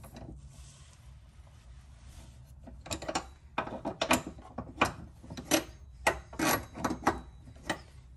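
Ratchet wrench clicking in short, irregular bursts, about ten of them starting some three seconds in, as a deep socket runs a nut onto a rear subframe stud.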